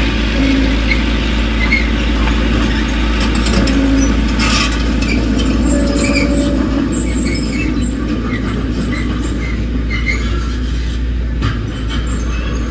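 Heavy diesel earthmoving machinery running steadily, with scattered short metallic squeaks over the low rumble.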